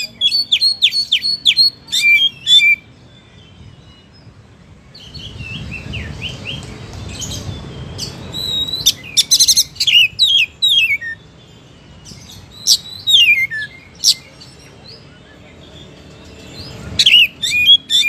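Male oriental magpie-robin singing in bursts of loud, falling whistles and fast runs of sharp notes, with short pauses between phrases. A low rumble runs under the song for a few seconds in the middle.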